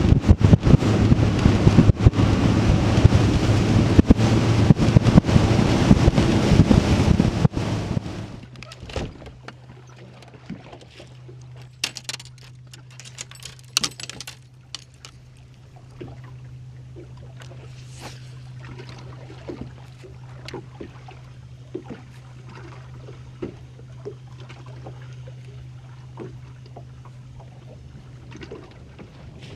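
Bass boat running fast across open water: outboard engine drone buried in heavy wind and hull-on-wave noise. About eight seconds in this cuts to a much quieter steady low hum from the electric bow trolling motor, with water lapping at the hull and scattered small knocks and ticks.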